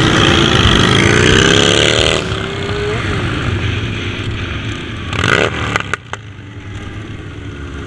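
Motorcycle engine accelerating from the riding bike, its pitch rising through the gears over rushing wind noise. About five seconds in there is a brief loud burst of noise with a few sharp clicks, after which the engine runs more quietly.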